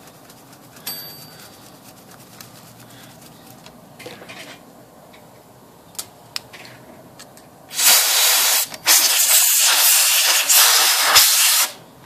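Compressed air blowing cleaning solvent out of a typewriter's typebars: a loud hiss, briefly interrupted once, lasting about four seconds near the end. Before it, faint light clicks of a brush scrubbing the metal.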